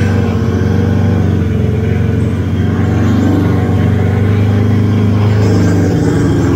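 Small motorcycle engine running steadily as the bike rides slowly along a dirt track, with slight rises and falls in engine pitch partway through.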